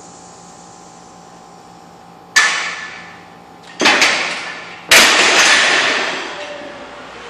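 A 155 kg barbell loaded with bumper plates clanging against a steel squat rack. There are three sharp metallic impacts over about two and a half seconds, each ringing out; the last and loudest comes as the bar is set back onto the rack's hooks.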